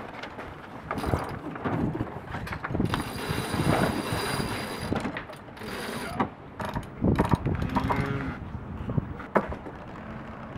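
Sailboat cockpit winch winding in a line, with its pawls clicking and rattling. A high, steady whine runs for about two seconds partway through and returns briefly a second later.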